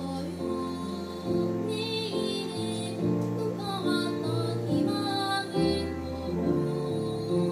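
Children's choir singing in held, sustained notes with piano accompaniment.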